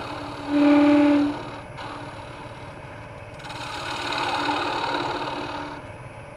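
Wood lathe running while a small gouge cuts into the end of a spinning maple blank, hollowing out a scoop, with the hiss of the cut swelling and fading. About half a second in there is a brief, louder pitched tone lasting under a second.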